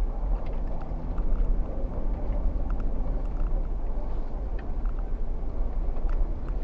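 Jeep Wrangler Rubicon engine running steadily at low trail speed on packed snow, a constant low rumble with occasional faint clicks and knocks from the vehicle jostling over the ruts.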